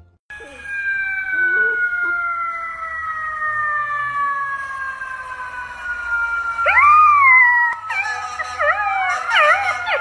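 Golden retriever puppy howling: a long wail that slowly falls in pitch, then from about seven seconds in a rising howl that breaks into quick wavering warbles.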